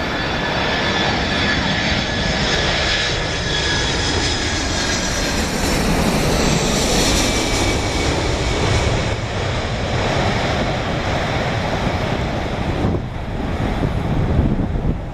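Boeing 747-400 freighter's four turbofan engines on landing approach: a broad jet roar with a high fan whine over it, loudest about halfway through.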